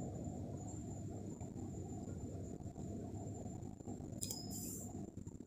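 Faint rustling of chunky T-shirt yarn being pulled through stitches with a crochet hook, over a thin steady high whine. A brief sharp click comes about four seconds in.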